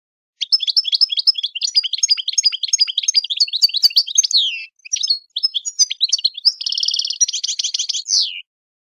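A small songbird singing a long run of rapid chirps and trills, with a brief pause around five seconds in and a buzzier trill near the end before it stops.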